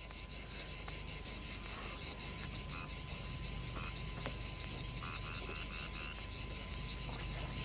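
Night ambience of frogs croaking in short pulsed runs over a steady chorus of chirring insects.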